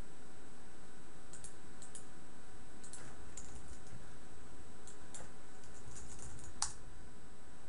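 Scattered clicks of a computer mouse and keyboard keys, in short irregular runs, with one sharper click about a second before the end.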